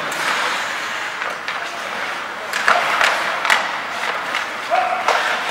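Ice hockey play: skate blades scraping the ice, with several sharp clacks of sticks and puck and players calling out near the end.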